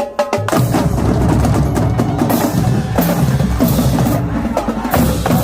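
Marching drumline playing a fast cadence on snare, tenor and bass drums, with a brief break about five seconds in.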